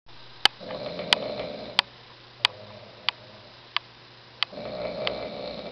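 A man asleep on his side, snoring: two drawn-out snores about three seconds apart. Sharp ticks repeat steadily about every two-thirds of a second throughout.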